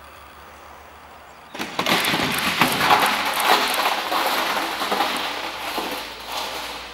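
Metal drum clattering as it rolls down a ramp and across the ground: a sudden loud, rattling noise that starts about a second and a half in and fades away over the next five seconds.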